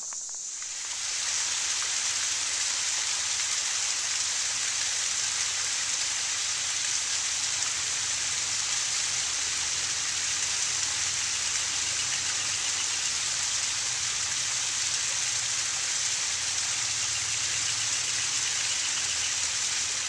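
Small waterfall, thin streams of water falling over layered rock ledges and splashing into a shallow pool: a steady splashing hiss that starts about a second in.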